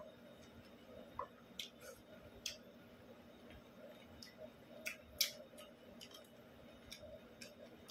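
Quiet eating sounds: a man chewing and picking food from a ceramic plate with his bare fingers, heard as a dozen or so scattered soft clicks. The loudest click comes about five seconds in.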